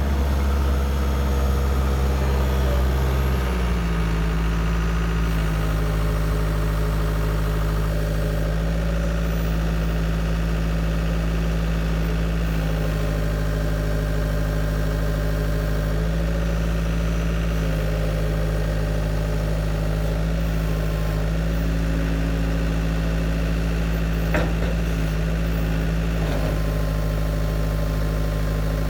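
Diesel engine of a Caterpillar tracked skid steer running steadily. The engine note changes about three and a half seconds in, and there is a brief knock near the end.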